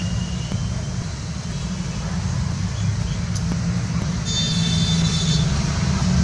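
Steady low rumble with a brief, high bird call about four seconds in, lasting about a second.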